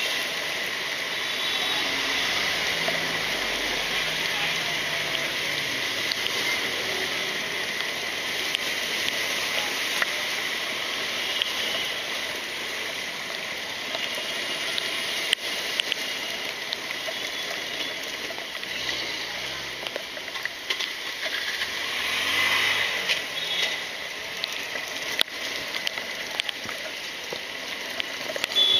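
Motorcycle riding through a waterlogged street in heavy rain: a steady hiss of rain and water churned up under the wheels, with the bike's engine running beneath it.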